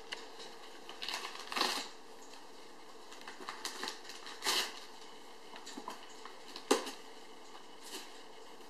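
Wrapping paper crinkling and tearing as a dog pulls it off a present with its teeth: irregular rustles and rips, with a few louder tears and one sharp snap about two-thirds of the way through.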